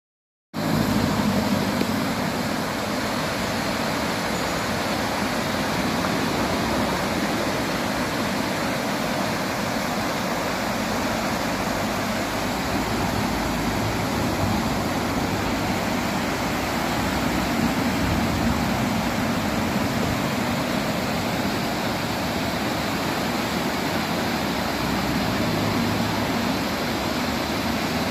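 Rain-swollen wadi rushing over rocks in white water: a steady, unbroken rush that begins suddenly about half a second in.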